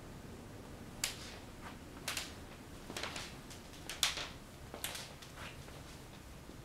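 Handling noise from a handheld camera: short rustling clicks about once a second, the loudest about four seconds in, over a faint steady room hum.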